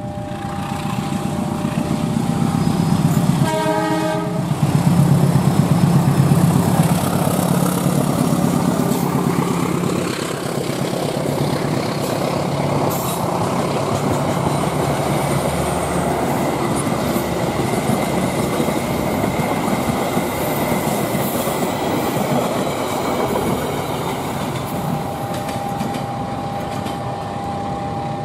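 Long-hood diesel-electric locomotive passing close with a passenger train: one short horn blast about three seconds in, the engine loudest as it goes by, then the coaches rolling past on the rails for most of the rest. Near the end a steady two-note tone comes in.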